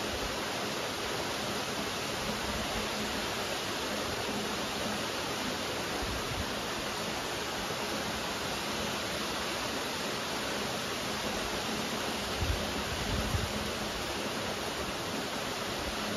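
Steady rain falling, an even hiss of raindrops. Two brief low thuds come about three-quarters of the way through.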